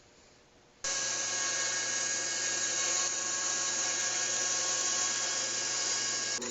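A woodworking power tool running steadily at full speed, with a high, hissing whine. It starts abruptly about a second in and changes abruptly to a different steady sound right at the end.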